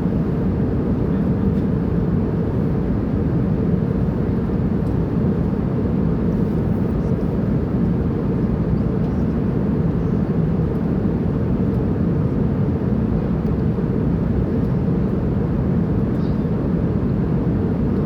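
Airplane in flight: a steady, unbroken engine and air noise, heaviest in the low range.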